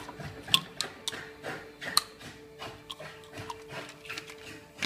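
Irregular sharp clinks and taps of small steel parts and hand tools being set down and moved on a steel workbench top. The two loudest come about half a second in and about two seconds in, over a faint steady hum.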